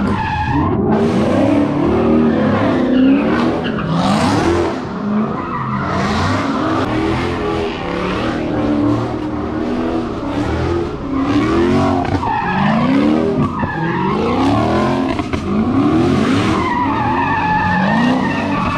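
A car doing a smoky burnout, its tyres squealing while the engine revs up and falls back over and over.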